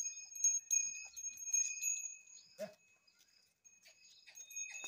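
Small bells on bullocks' collars ringing and jingling as the animals are led along, with a brief low sound about two and a half seconds in.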